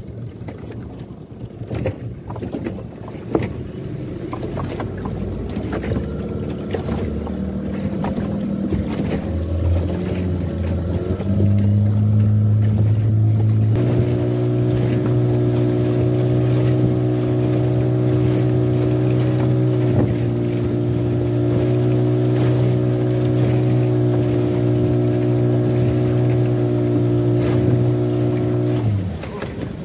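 Yamaha 15 hp outboard motor driving a small fibreglass boat through choppy sea: the engine note climbs in steps over the first half as it speeds up, then holds steady at high revs and drops away suddenly near the end. The hull slaps on the waves throughout.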